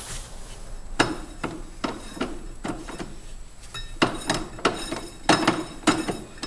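Ratcheting torque wrench running down the secondary clutch bolt: a series of sharp metallic clicks a few times a second, starting about a second in and coming thicker near the end.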